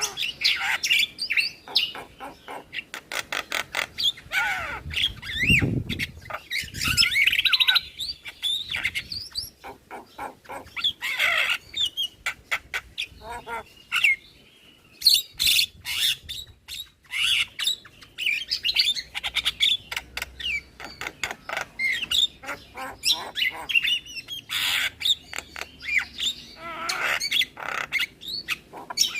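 Javan myna singing: fast rattling, clicking chatter mixed with whistled, warbling notes and harsh squawks, with a short pause about halfway through.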